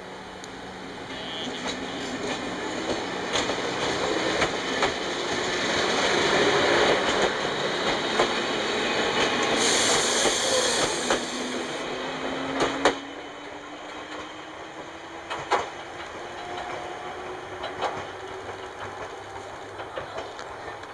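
Chichibu Railway 1000 series (ex-JNR 101 series) electric train pulling out of a station. Its traction motor whine rises slowly in pitch as it gathers speed, and the wheels click over rail joints. A brief hiss comes about ten seconds in, and the sound falls away after about thirteen seconds as the last car passes.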